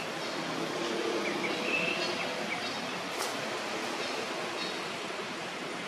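Steady outdoor hiss of open-air ambience, with a few faint high chirps about a second or two in.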